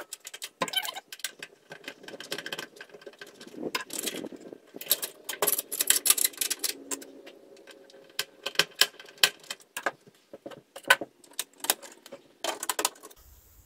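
Irregular light clicks, taps and rattles of hands working inside a metal solar power distribution panel, pressing grommets back into its knockout holes.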